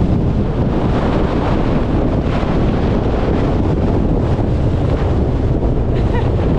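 Gale-force wind buffeting the camera microphone: a loud, continuous low rumble with gusty surges and no break.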